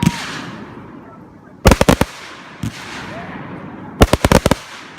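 Aerial fireworks bursting: two rapid volleys of sharp cracks, one about a second and a half in and another about four seconds in, with a steady crackling hiss between them.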